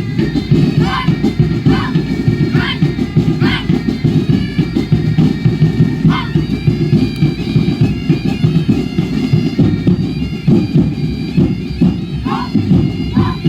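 Loud music for a kukri dance, with a steady droning, reedy tone over a dense low accompaniment. Short falling-pitch cries or whistles cut through several times in the first few seconds, once around the middle and twice near the end.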